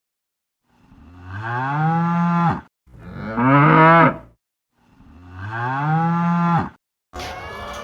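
Cow mooing three times, each call long and rising then falling in pitch, the second the loudest.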